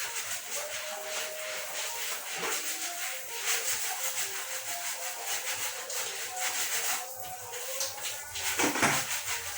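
Hot water being poured off a pot of boiled sweet potatoes, a steady splashing hiss, with a clatter of the pot or lid near the end.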